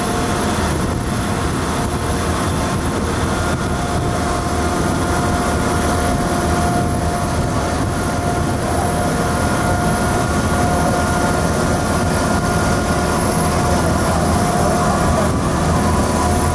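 Diesel engine of a vaporetto water bus running steadily under way, heard from its open deck: a loud, even drone with a couple of held whining tones on top and a hiss of water and wind.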